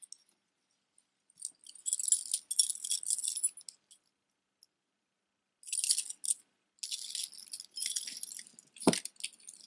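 Gold-tone metal costume-jewelry necklace jingling as it is handled: openwork oval links, chain and beads clinking together in three spells of rattling, with a short thump near the end.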